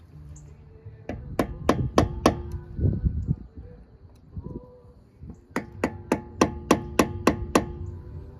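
Hammer tapping a screwdriver driven under a wheel hub's dust cap to work it off. There are about five quick metallic taps, each with a short ring, then a pause with some duller knocks, then a second run of about eight taps.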